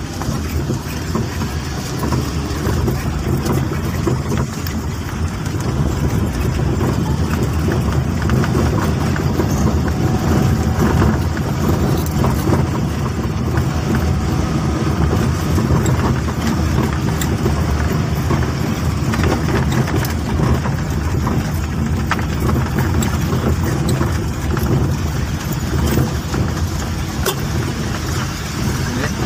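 A car driving along a rough rural road, heard from inside: steady engine and road noise with scattered small knocks and rattles from the bumps.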